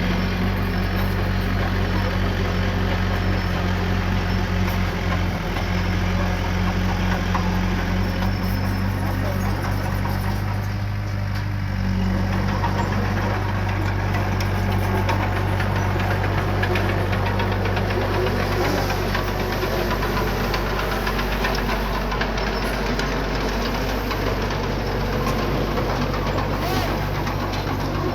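Diesel engine of small earthmoving equipment running steadily under work.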